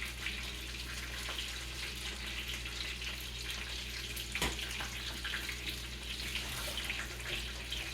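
Kitchen tap running steadily into a sink, with a single sharp click about halfway through.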